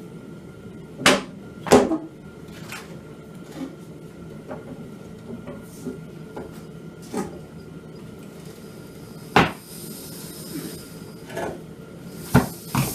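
Metal clanks and knocks from a manual tire bead breaker being set on and worked against an ATV wheel to break the old tire's bead. A few sharp clanks stand out, about a second in, near two seconds, around nine seconds in and near the end, with lighter clicks between.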